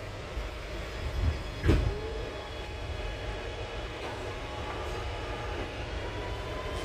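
Interior running noise of an R211T open-gangway subway car: a steady low rumble of wheels on rail, with two sharp knocks about a second and a half in and faint high whining tones later on.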